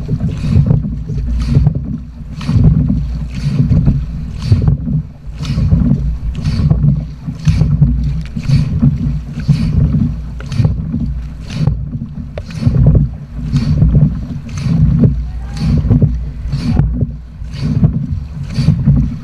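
Dragon boat paddles striking and pulling through the water in a fast, even rhythm, about three splashing strokes every two seconds. Under them runs a constant low rush of wind and water on the hull-mounted camera's microphone.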